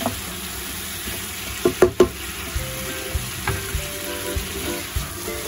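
Mixed vegetables sizzling in a hot frying pan as they are stir-fried, with a wooden spatula knocking against the pan a few times, loudest twice about two seconds in.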